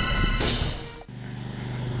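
Background music with held tones cuts off abruptly about a second in, giving way to a quieter, steady low hum.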